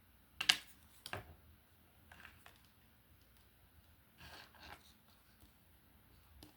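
Tarot cards being handled: two sharp card snaps about half a second and a second in, then faint sliding and rustling of cards twice more.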